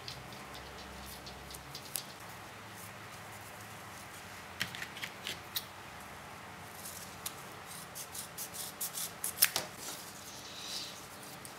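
Scissors snipping strips of patterned design tape: a scatter of short crisp snips and clicks, sparse at first and coming thick and fast about two-thirds of the way in.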